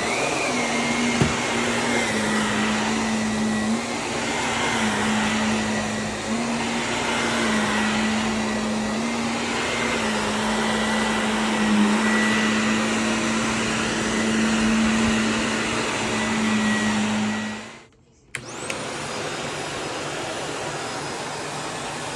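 Vacuum cleaner running with a steady motor hum and a high whine. Near the end it cuts out for about half a second and comes back on, a little quieter.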